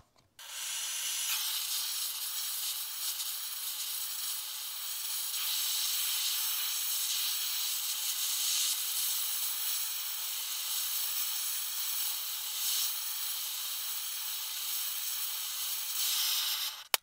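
Flame of an oxy-fuel gas torch hissing steadily as it heats a steel part. The hiss starts abruptly just after the beginning and cuts off sharply near the end.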